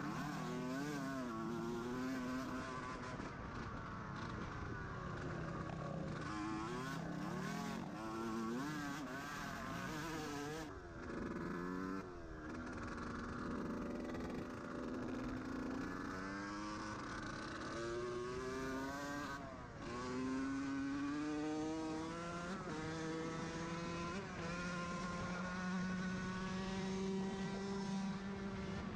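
Dirt bike engine under way, its note rising with the throttle and dropping back again and again as the rider shifts and eases off, with stretches at a steady pitch. Wind and road noise on the bike-mounted camera run under it.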